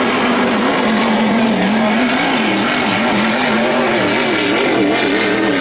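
Vintage racing hydroplane engines running flat out, with a loud engine note whose pitch wavers up and down over a steady rush of noise.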